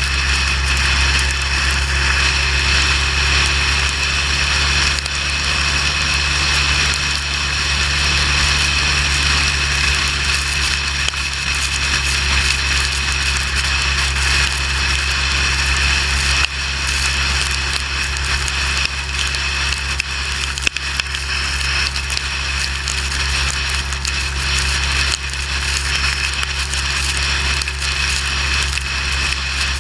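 Motorcycle at steady highway speed on a wet road: a constant low engine drone under a loud, even hiss of wind and road noise.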